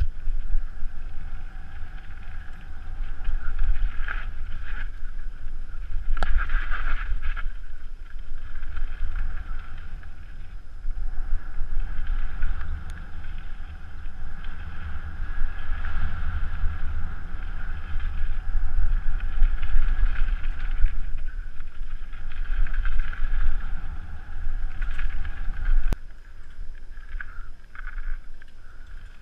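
Wind buffeting a helmet-mounted camera's microphone as a mountain bike rolls fast down a dirt forest trail, with tyre noise and rattling over the bumps that swells and fades. A sharp knock about 6 seconds in and another near the end.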